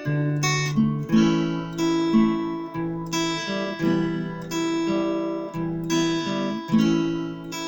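Acoustic guitar strumming chords, a fresh strum about every second with the chords ringing on between them.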